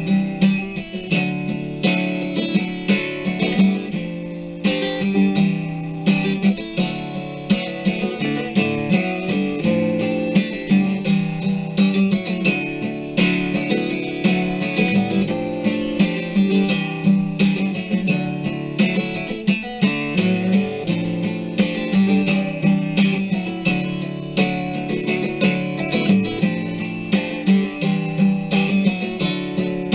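Instrumental guitar music: plucked and strummed guitar chords in a steady rhythm, with no singing.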